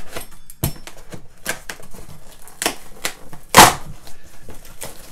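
Pizza cutter's rolling blade scraping and clicking across a cardboard box as it slices through cloth-reinforced packing tape: a run of irregular sharp clicks and scrapes, the loudest about three and a half seconds in.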